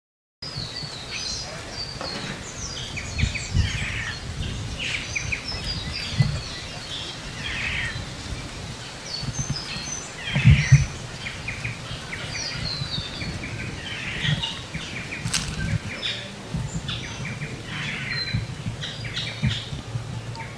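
Many birds calling at once, with short chirps and twitters throughout, over a low outdoor rumble with occasional dull thumps, the strongest about halfway through.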